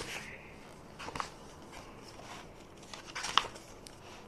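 Pages of a printed book being turned and handled: short paper rustles about a second in, and louder ones a little past three seconds in.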